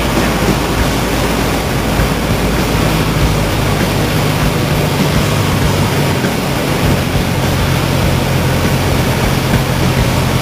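Citabria light aircraft's piston engine and propeller heard from inside the cockpit on final approach to land, under a loud, steady rush of airflow noise. A low steady engine hum becomes clearer about three seconds in.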